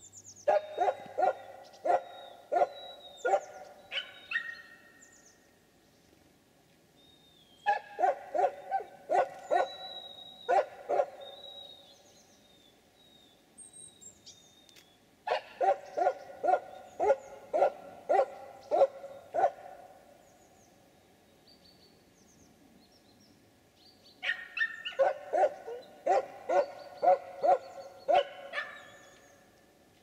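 An animal calling in four bouts of rapid, evenly spaced notes, about two a second, each bout lasting about four seconds. Thin high calls of small birds come between and over the bouts.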